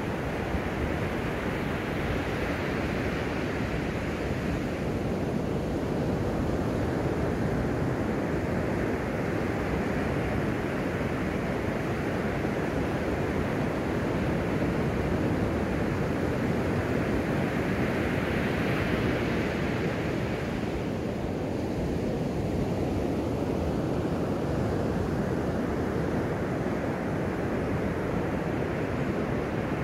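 Surf breaking on a sandy beach: a steady wash of waves that swells louder about three seconds in and again about nineteen seconds in.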